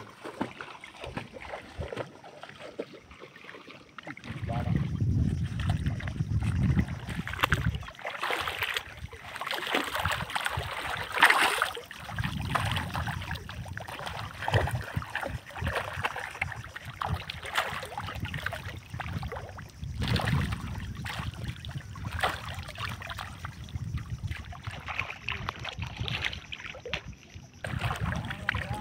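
Shallow muddy seawater splashing and sloshing as fish thrash at the surface, in irregular splashes, the loudest near the middle, over a low rumble through much of it.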